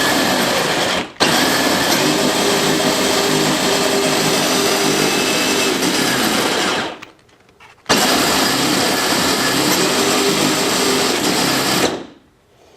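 Power Wheels Sun Jammer electric drive motors and gearboxes running at high speed on the 18-volt turbo boost, a steady whine. It cuts out briefly about a second in, stops for about a second near the middle, starts again, and stops near the end.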